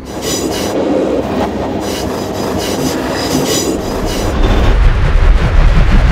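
Metro train rushing past: a rushing clatter with bursts of high-pitched squealing, giving way about four seconds in to a heavy low rumble that grows louder.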